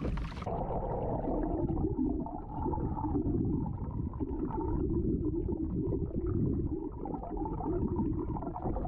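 Muffled underwater rushing and gurgling of sea water flowing past a moving kayak's hull and fin, heard through an underwater camera. It starts about half a second in, when all the high sound cuts out, and runs on as a steady low rumble.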